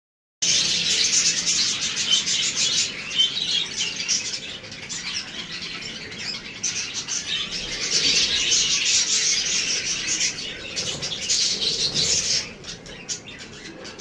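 Budgerigars chattering and chirping in a busy, continuous warble that dips quieter for a few seconds in the middle and again near the end.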